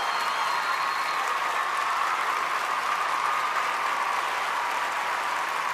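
Large arena audience applauding steadily, with a high whistle from the crowd in the first second.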